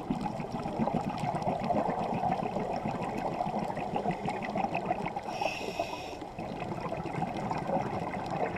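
Scuba diver breathing through a regulator, heard through an underwater camera housing: a long stretch of bubbling exhaled air, then a short hissing inhale about five seconds in, then bubbling again.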